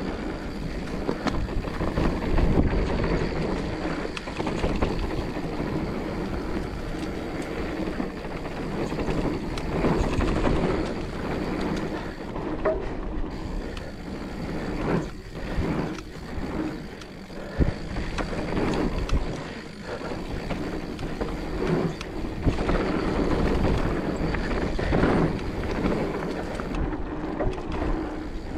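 Mountain bike rolling fast down a dirt trail: tyre noise on the dirt and wind buffeting the microphone in a steady rush that swells and dips, with scattered knocks and rattles from the bike over bumps.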